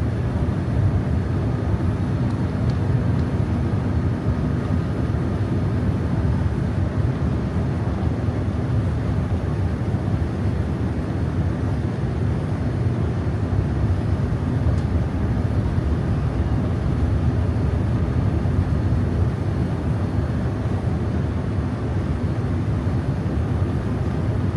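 Steady jet airliner cabin noise inside a Boeing 787-9 in flight: an even, unchanging low rumble of engine and airflow.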